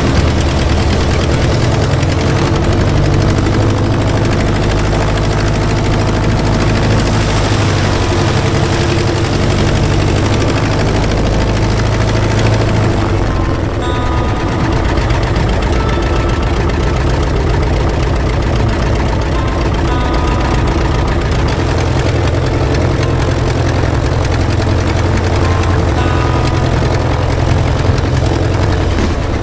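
The Lancair 360's four-cylinder Lycoming piston engine running steadily with its propeller turning, on the first run of the new build. The tone shifts about halfway through.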